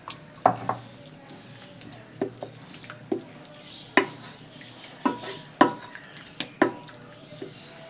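A spoon stirring a simmering curry in a cooking pot, knocking and clinking against the pot about ten times at uneven intervals, a few knocks ringing briefly, over a faint sizzle.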